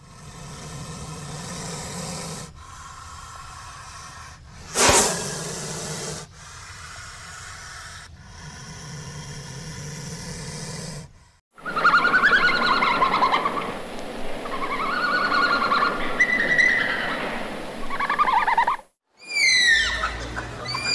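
A cobra hissing in a series of long breaths, with one louder, sharper hiss about five seconds in. From about halfway a red panda's squealing, gliding calls follow. Near the end a Malayan tapir gives repeated high whistles that fall quickly in pitch.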